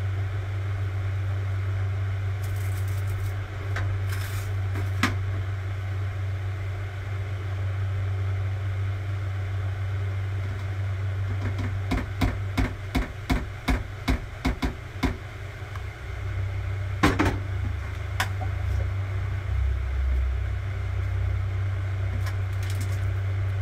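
Kitchen sounds at a gas stove: a steady low hum, with a quick run of about a dozen sharp clicks or taps about halfway through and a single louder knock a couple of seconds later.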